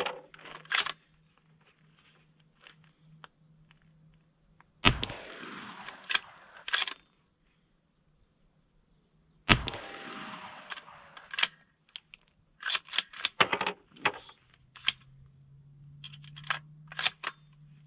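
Two rifle shots from a Q Mini Fix bolt-action rifle in 300 Blackout, about four and a half seconds apart, each followed by a long echo dying away. Between and after the shots, the bolt is worked open and closed in quick metallic clicks and clacks to chamber the next round.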